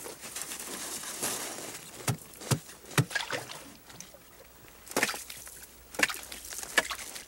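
An axe or ice chisel hacking at river ice, about seven sharp, uneven blows with pauses between them.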